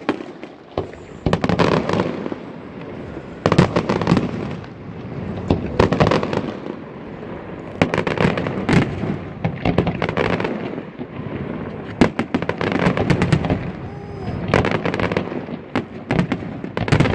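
Fireworks display: shells bursting in rapid clusters of sharp bangs every second or two, with rumbling and crackling between the bursts.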